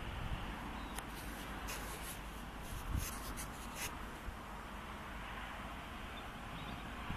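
Scratchy rubbing of something against the camera's microphone, a run of short strokes between about one and four seconds in, over a steady hiss and low fluttering rumble of wind on the microphone.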